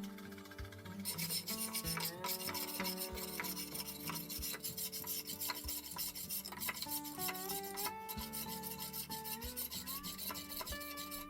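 Fast, rhythmic rasping and scraping, like wood being worked by hand, over a melody of background music.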